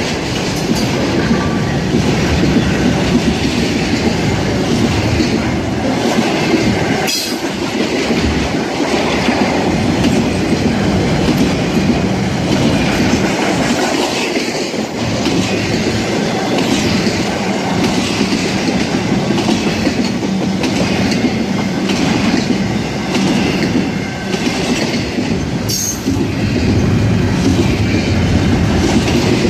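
Intermodal freight train cars rolling past, trailer flats and then double-stack container well cars, with a steady rumble of steel wheels on rail. Clicks from the wheels repeat throughout, and there are two sharper clanks, about 7 seconds in and near the end.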